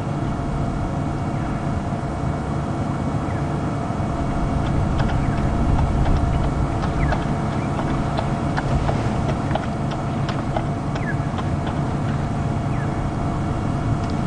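Safari game-drive vehicle's engine running steadily with a low rumble, with scattered short high chirps over it.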